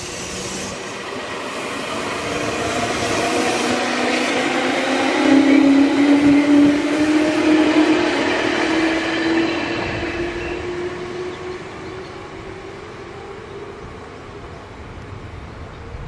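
Meitetsu electric commuter train running by, the hum of its motors swelling to its loudest about five to nine seconds in and then fading away.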